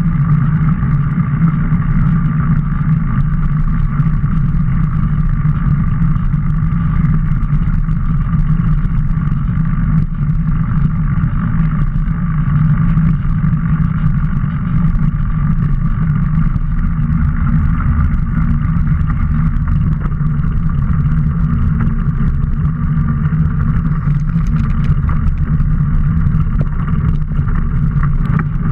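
Steady, muffled rush of wind and knobby mountain-bike tyres rolling over pavement and then dirt trail, picked up by a camera mounted low on the moving bike.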